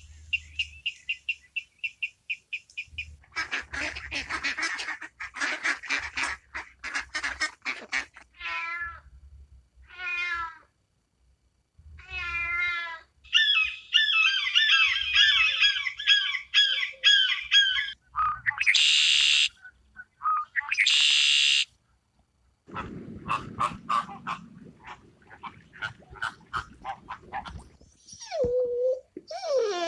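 A series of short clips of different animal calls one after another: high regular chirping, rapid raspy calls such as duck quacking, a few falling meow-like calls, dense high warbling, and two brief hissing bursts.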